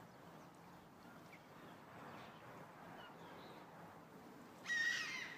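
Faint background hiss with a few faint high chirps. Just before the end comes a short, louder, high-pitched chirping sound.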